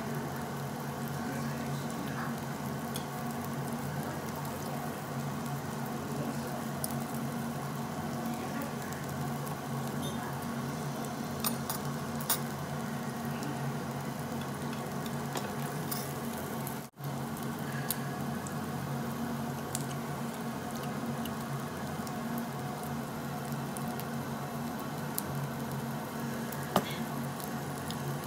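Marinated duck meat and garlic sizzling on a hot tabletop barbecue grill grate: a steady sizzle with scattered crackles and a few louder pops, over a low steady hum. The sound cuts out for an instant about seventeen seconds in.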